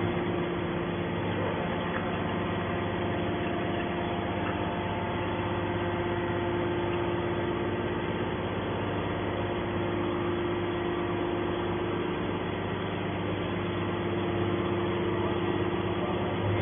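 Horizontal scrap metal baler running, its hydraulic power unit giving a steady machine hum with a held tone.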